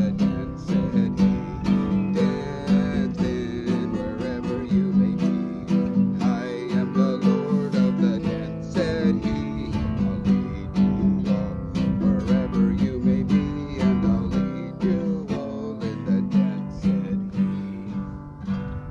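Classical guitar strummed in a steady rhythm of full chords.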